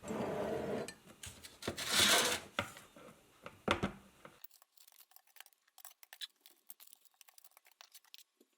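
A metal utensil scraping and clinking against a mixing bowl as soft meringue mixture is worked. After about four seconds it gives way to a few faint light clicks.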